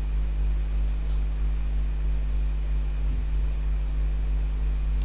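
Steady low electrical hum with background hiss in the recording, with no other sound.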